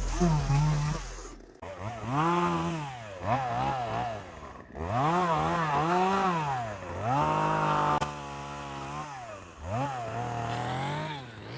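Two-stroke chainsaw revved up and down repeatedly, its pitch climbing and falling with each squeeze and release of the throttle while bucking tree limbs into shorter pieces.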